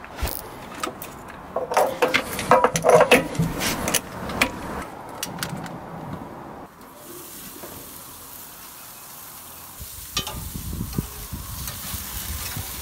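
Clicks, knocks and scrapes as a gas regulator is handled and fitted onto a gas cylinder. About seven seconds in, a steady hiss begins and carries on.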